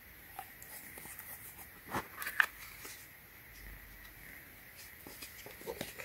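Hands opening a cardboard Zippo lighter box and sliding out the paper insert: faint scrapes and rustles of card, with a sharp click about two and a half seconds in and a few more small clicks near the end.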